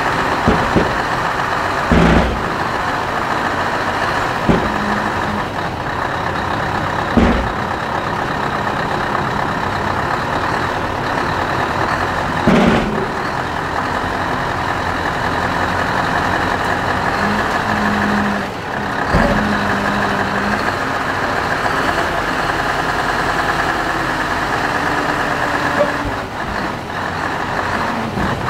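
Scania R620's V8 diesel running steadily while the hook lift's hydraulics pull a steel roll-off container up onto the truck. Loud metallic clanks and bangs, about half a dozen, come as the container shifts and seats on the frame.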